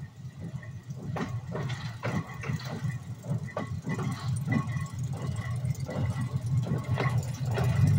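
Brookville gasoline switcher locomotive approaching at low speed, its engine running with a low rumble that grows louder as it nears. Irregular clanks and knocks from the running gear on the track sound over it.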